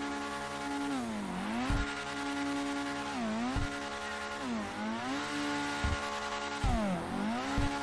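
Sports car drifting in circles, its engine held at high revs in a steady whine. The pitch dips and climbs back four times, with a few short low thumps.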